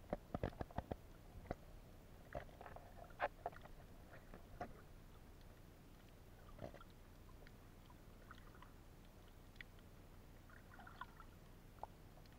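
Faint, muffled clicks and knocks recorded underwater: a quick cluster of sharp knocks in the first second, then scattered ticks that thin out after about five seconds.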